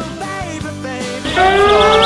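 Background pop music with guitar. About one and a half seconds in, a louder live recording cuts in, carrying a long, slowly rising wail with other wavering tones over it.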